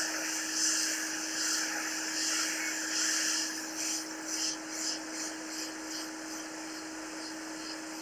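Hot air rework station blowing a steady hiss onto the BIOS chip on a MacBook Pro logic board, reflowing low-melt solder under the chip's legs. The hiss eases off and turns uneven a little past three seconds in, over a faint steady hum.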